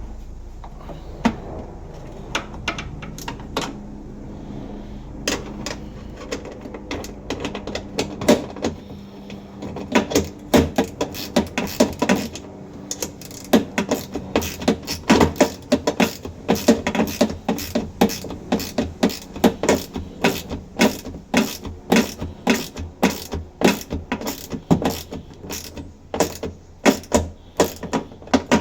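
Ratchet spanner clicking in repeated short strokes as body bolts are tightened. The clicks are sparse at first and come quickly and steadily from about a third of the way in, over a low steady hum that fades out.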